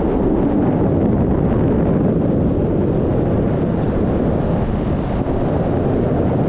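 Steady, loud wind rushing over the microphone of a camera on a paraglider in flight.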